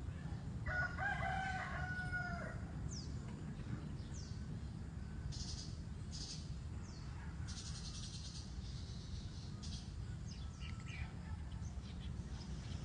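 A rooster crows once, a single call of about two seconds beginning just under a second in. Faint high chirps and squeaks follow over a steady low noise.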